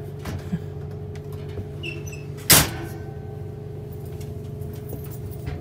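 Tall metal locker-style cabinet door slammed shut once, a single sharp bang with a brief ring, about two and a half seconds in, over a steady low hum.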